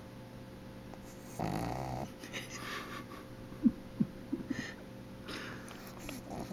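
Sleeping Boston terrier puppy snoring: one loud buzzing snore about a second and a half in, then softer wheezy breaths and a few short squeaky snuffles.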